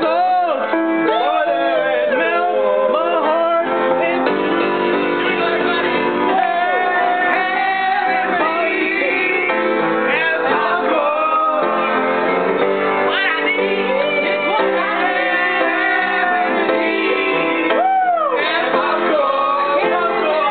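A song: voices singing a tune over steady instrumental accompaniment.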